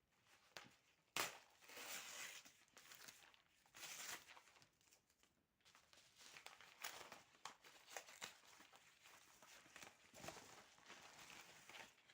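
A mailed parcel's wrapping being opened by hand: faint crinkling and tearing rustles, with a sharp crackle about a second in.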